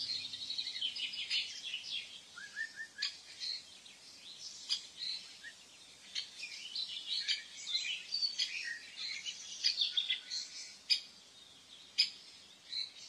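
Weaver birds chirping and chattering in quick, high-pitched calls and trills, with several sharp clicks scattered through.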